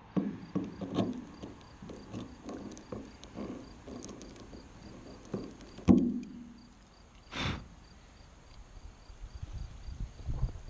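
A knife prying a rubber antenna-hole plug out of a car's roof: a run of irregular scrapes and clicks, with a louder click about six seconds in as the plug comes free.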